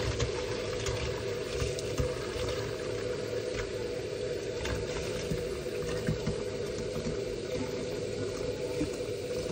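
Tap water running from a kitchen faucet in a steady stream into the neck of a plastic bottle, filling it.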